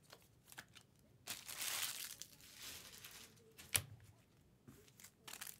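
Foil trading-card pack wrappers crinkling and rustling as they are handled, loudest for about two seconds from a second in, with one sharp tap just before the four-second mark.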